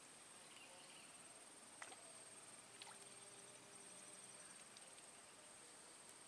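Near silence in a swamp, with a faint, steady high-pitched insect trill running throughout and a few soft ticks.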